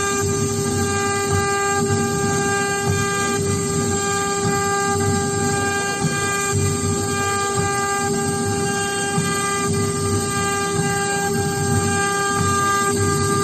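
CNC router spindle running with a steady high whine, over a rougher, uneven cutting noise as it carves.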